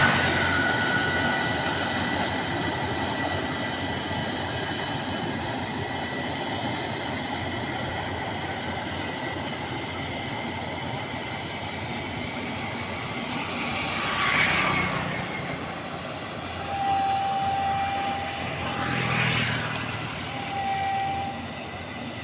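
Combine harvester running steadily. Its noise swells twice in the second half, and a short steady tone repeats several times near the end.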